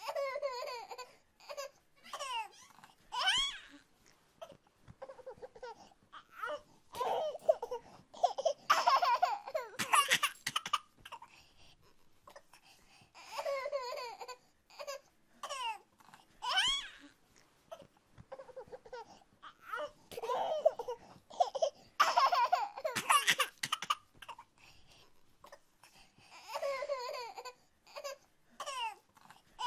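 A baby babbling and laughing in repeated short, high-pitched vocal bursts.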